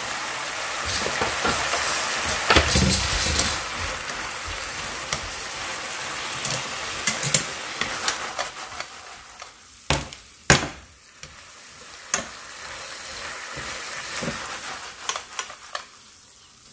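Water spinach and minced garlic sizzling in a hot pan as they are stir-fried and tossed. The sizzle fades about halfway through, leaving a few sharp clicks against the pan.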